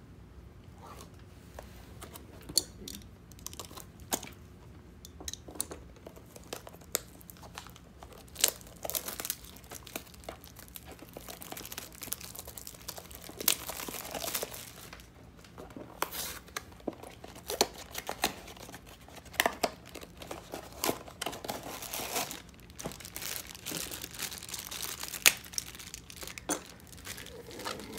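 Mystery-mini blind-box packaging being torn open and crinkled by hand, with irregular sharp crackles and snaps that grow busier after the first few seconds.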